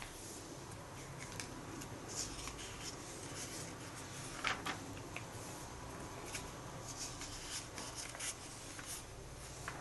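Comic book pages being handled and turned by hand: soft paper rustles and flicks, with one sharper page turn about four and a half seconds in.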